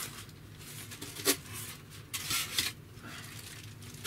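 Plastic packaging rustling and crinkling in short bursts as it is handled, with one sharp click about a second in.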